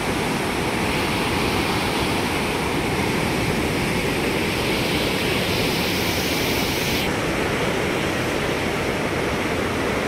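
Steady rush of a swollen, muddy river pouring through rocky rapids: continuous whitewater noise with no break, its hiss turning duller about seven seconds in.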